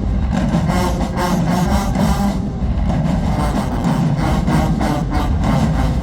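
A marching band playing loud: brass over a steady drumline beat.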